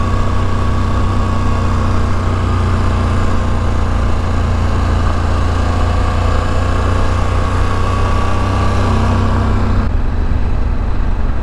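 KTM 1190 Adventure R's V-twin engine running steadily under way, heard from the rider's helmet with a steady rush of noise over it. The high hiss drops away near the end.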